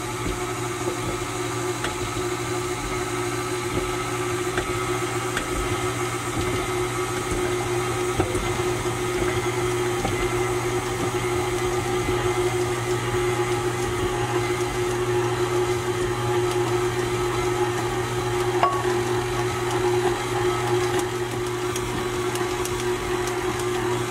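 KitchenAid stand mixer running at a steady speed, its motor humming evenly while the beater works a yeast dough in a glass bowl.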